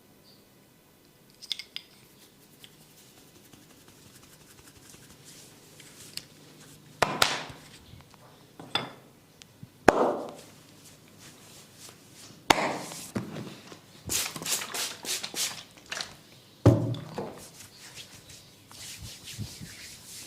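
Hands slapping and striking a person's body during a barber's massage, with rubbing between: single sharp slaps a second or two apart, a quick run of chopping strikes for about two seconds, then one more hard slap.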